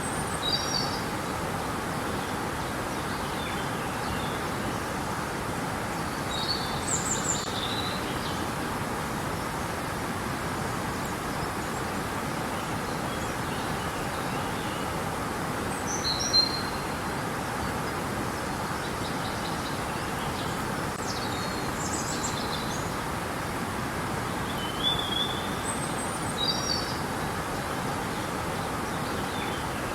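River water flowing with a steady rush, with birds giving short chirps every few seconds over it.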